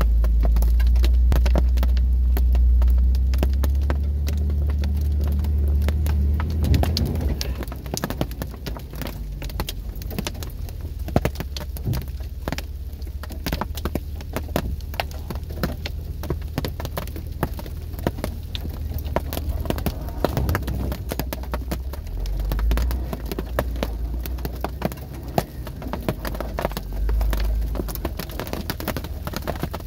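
Hail pelting a Jeep's roof, hood and windshield, heard inside the cab as a dense, irregular patter of sharp ticks, over the low rumble of the engine, which is heavier for the first seven seconds or so.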